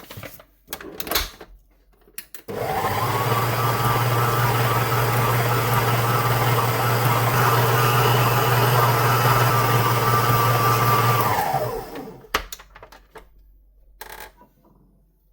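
Food processor motor running steadily for about nine seconds, kneading bread dough after a little extra flour was added to dry it, then switched off and winding down. A few clicks and knocks come before and after it.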